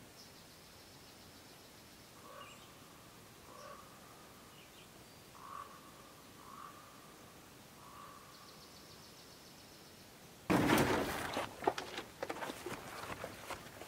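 Faint outdoor background with animal calls: a short call repeated every second or two, and a high rapid trill near the start and again about eight seconds in. About ten seconds in, a much louder stretch of rustling and knocks begins.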